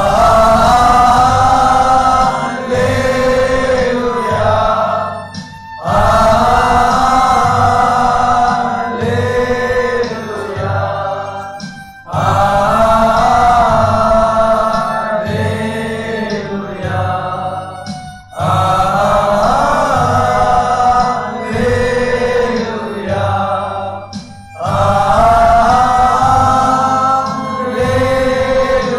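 A group of men singing a Christian worship song together, backed by an electronic keyboard with a steady low beat. The singing comes in loud phrases that swell and fall away about every six seconds.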